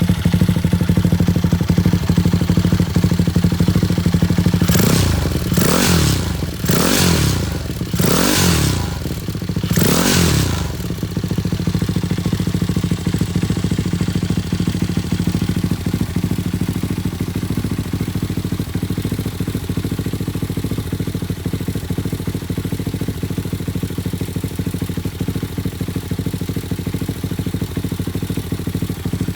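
Chinese Monkey-clone motorcycle's single-cylinder four-stroke engine idling steadily through an aftermarket Akrapovic-style silencer with inner baffle. The throttle is blipped four times in quick succession, about five to ten seconds in, each rev rising and falling back, before it settles to idle again. The exhaust has a slight leak at the mid-pipe joint, per the owner.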